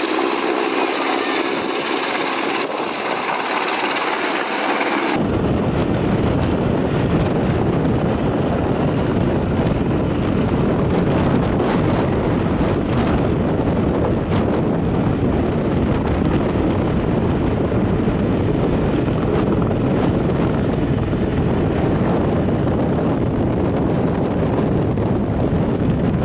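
AgustaWestland AW101 helicopter flying overhead. After about five seconds this cuts to a Bell Boeing V-22 Osprey tiltrotor in helicopter mode, flying low, its rotors and turboshaft engines making a loud, steady, deep noise.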